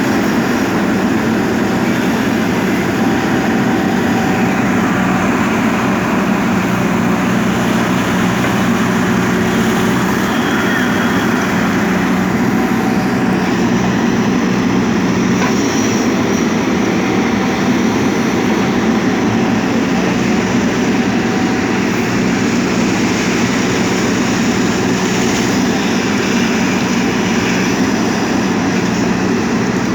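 JCB backhoe loader's diesel engine running steadily under work, a continuous loud machine rumble with a steady low hum.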